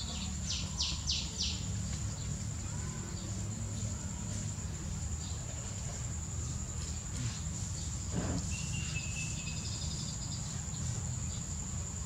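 Steady high-pitched insect drone over a low outdoor rumble, with a quick run of four chirps from a small bird about half a second in and a short whistled note a little past the middle.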